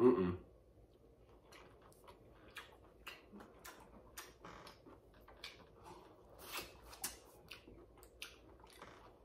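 Close-up mouth sounds of a person eating a spicy seafood boil with his fingers: wet smacking, slurping and chewing in short, irregular clicks. A brief louder mouth sound comes right at the start.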